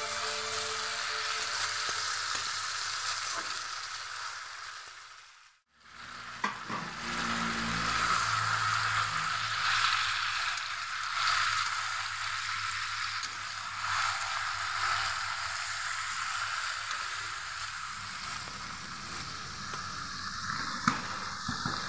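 Masala frying and sizzling in a metal kadai, stirred with a metal spatula that scrapes against the pan. The sizzle breaks off briefly about six seconds in, then carries on.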